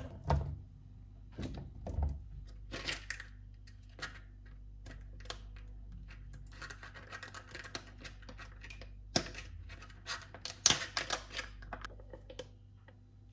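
A plastic sauce pouch crinkling and being torn open by hand, with sharp crackles and clicks. A few knocks come in the first two seconds as rice cakes are laid into a frying pan.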